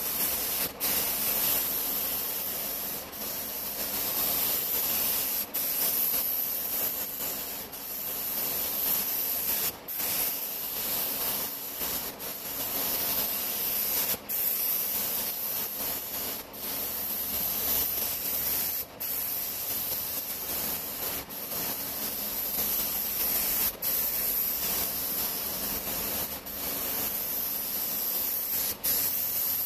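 Compressed-air gravity-feed paint spray gun spraying a jet ski hull: a steady hiss of air and atomised paint, broken by brief dips about every two seconds.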